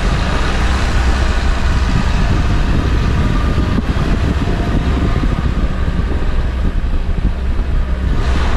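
Longtail boat's engine running steadily at speed, a loud low drone, mixed with the rush of wind and the wake's water.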